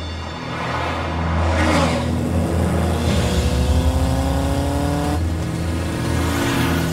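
A vehicle engine revving and accelerating, its pitch rising twice in the second half, over low-pitched music.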